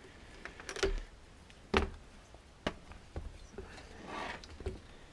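Scattered light knocks and clicks of a Shindaiwa 300S chainsaw's plastic housing and engine unit being handled and pulled apart, with a soft rustle about four seconds in.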